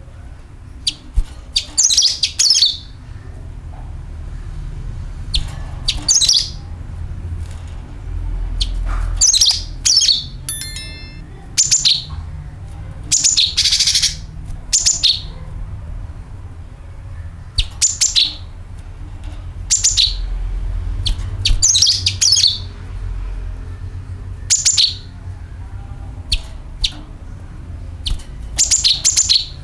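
Cucak kinoi calling and singing: short bright chirping phrases repeated every second or two, with one quick stuttered series partway through. A steady low rumble runs underneath.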